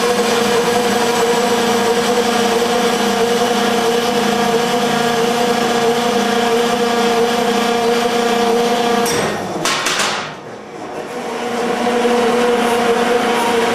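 Beaver 6 metal-cutting band saw running, a steady motor and blade hum as it cuts steel tubing. About nine to ten seconds in there are a few clicks and the sound drops away briefly, then the saw runs on as before.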